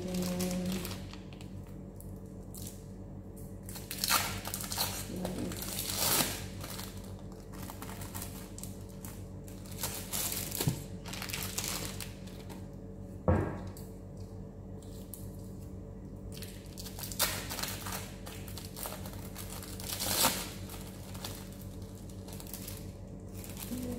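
Plastic wrappers crinkling as individually wrapped cheese slices are peeled out of them, in several short bursts. A steady low hum runs underneath.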